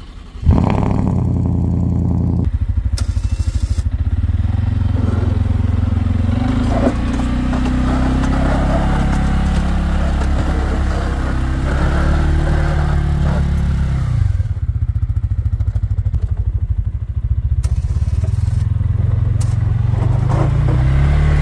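A vehicle engine starts abruptly about half a second in. Then the 2023 CFMoto CForce 600 ATV's single-cylinder engine runs under load as it pushes snow with a front plow, its pitch rising and falling with the throttle.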